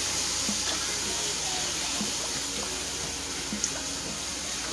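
Beef broth pouring from a carton into a hot pan of cube steaks, onions and bell peppers: a steady splashing pour over the pan's sizzle, with one light click about three and a half seconds in.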